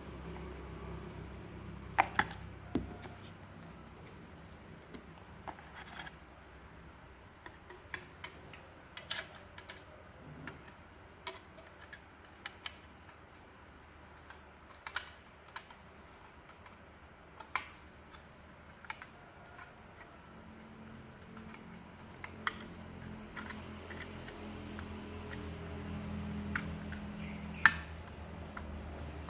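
Scattered small clicks and taps at an irregular pace, a few sharper ones about two seconds in and near the end, over a low steady hum.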